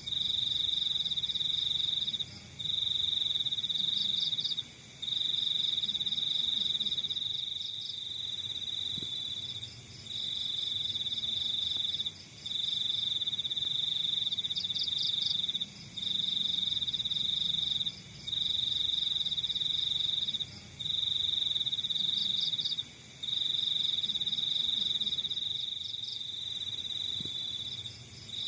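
Crickets trilling: one loud high trill on a steady pitch, running in stretches of about two seconds broken by short pauses. A fainter, higher, quicker chirping runs alongside it and swells briefly several times.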